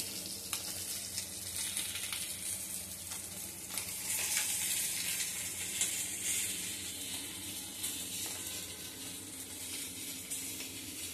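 Bata fish frying in hot oil in a kadai, a steady sizzle, with a few faint clicks as pieces are lifted out.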